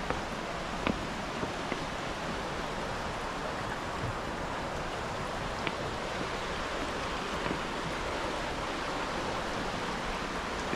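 Steady rushing of a river running high and fast after heavy rain, with a few faint taps of footsteps on wooden stairs.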